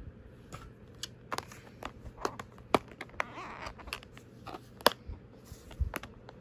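Clear plastic compartment case of false nail tips being handled: a string of sharp plastic clicks and taps, with a short rustle of the loose tips about three and a half seconds in.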